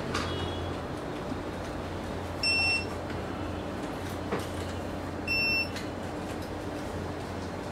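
Two short electronic beeps of the same pitch, about three seconds apart, over a steady low hum.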